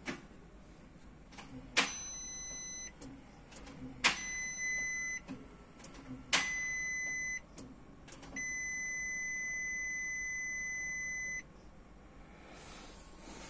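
Three sharp clicks, each followed by a steady, high-pitched electronic beep of about a second, then one longer beep of about three seconds. This is the Tata Nano AMT's dashboard warning buzzer sounding while the automated gearbox is put through its gear-learning routine.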